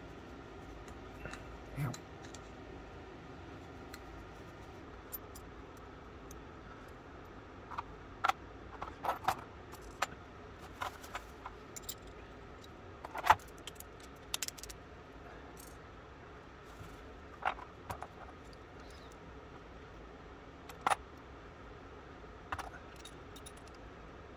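Small steel lock parts of an antique muzzle-loading boot pistol clicking and clinking as the lock is reassembled by hand: scattered sharp clicks, in small clusters, the loudest about halfway through.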